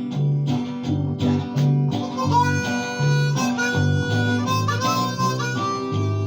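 Harmonica playing an instrumental break over strummed and plucked acoustic guitar, with held melody notes over a steady bass line.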